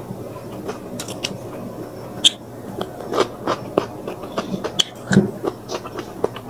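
Close-miked chewing of crispy fried fish: a run of irregular crunches and wet mouth clicks, with louder crunches about two and five seconds in.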